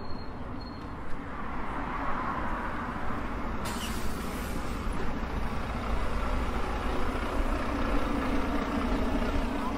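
City bus engine running at a stop, with a short sharp pneumatic hiss of air about four seconds in.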